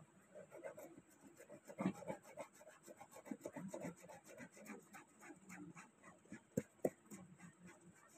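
Small white plastic applicator scrubbing a wet cotton shirt over a grease stain, working stain remover into the cloth. It makes faint, quick, irregular scratchy rubbing strokes.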